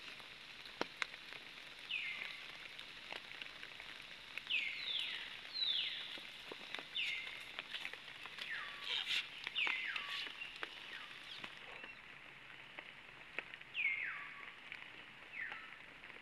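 A bird calling again and again, about eight short sharp notes that each drop in pitch, bunched in the middle and again near the end. Scattered faint clicks come between them.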